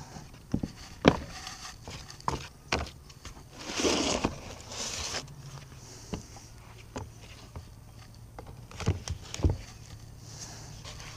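Heavy rust-covered cast iron lathe steady rest being handled and set down on a tray after a vinegar soak: scattered knocks and clunks of iron on the tray, loudest about a second in, with a short stretch of scraping noise about four seconds in.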